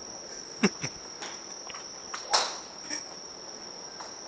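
Crickets chirring in one steady, high, unbroken tone. Over it come a few short, sharp clicks and knocks; the loudest is about half a second in, and another comes a little after two seconds.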